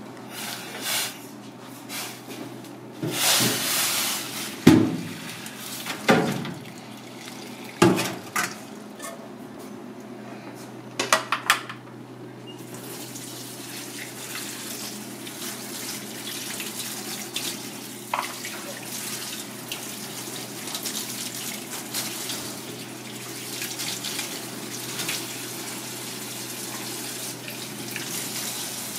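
A few metal clanks and knocks of a pot being handled. A little before halfway a kitchen tap starts running steadily into a metal sink, with fish pieces being rinsed by hand under the stream.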